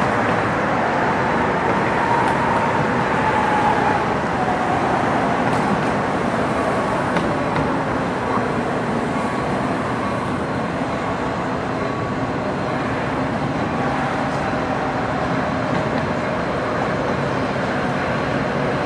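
Steady city traffic noise, with a Metra diesel commuter train approaching slowly along the tracks.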